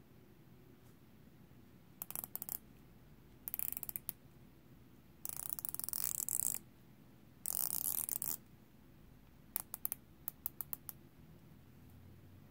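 The rotating dive bezel of a San Martin SN017-G watch turned by hand, giving ratcheting clicks: two short runs, two longer fast runs in the middle, then single clicks one at a time near the end.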